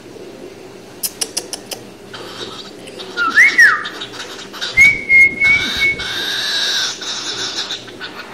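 A cockatiel whistling: a few sharp clicks, then a short whistle that swoops up and back down, then a higher whistle held for about a second.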